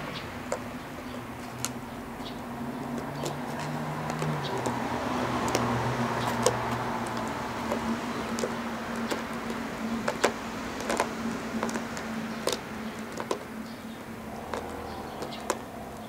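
Irregular sharp clicks and crackles of a Shiba Inu chewing and pawing at a plastic drink bottle, over a steady low hum.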